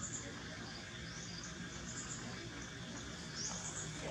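Quiet outdoor ambience: faint, scattered high chirps, like insects, over a low steady hum.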